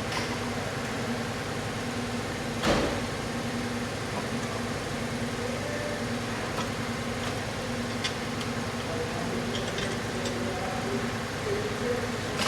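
A motor running steadily in the background, with one loud knock about two and a half seconds in and a few light clicks later on.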